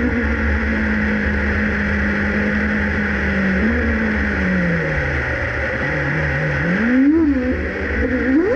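2019 Alfa Romeo Racing Formula 1 car's turbocharged 1.6-litre V6 at low revs, running steadily, then easing off to a lower note about five seconds in. It gives a short blip of the throttle around seven seconds in and revs up sharply just before the end as the car pulls away.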